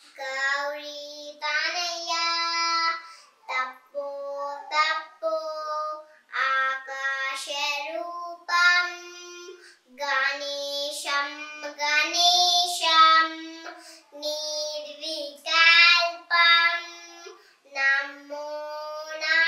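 Young girl singing a Sanskrit prayer verse solo, with no accompaniment, in short sung phrases separated by brief pauses.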